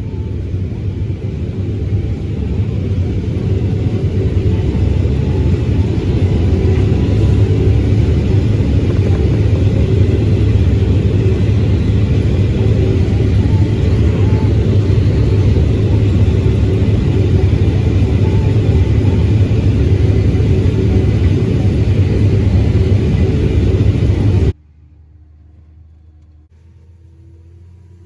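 Combine harvester running close by, getting louder over the first few seconds, then a steady heavy rumble that cuts off abruptly near the end.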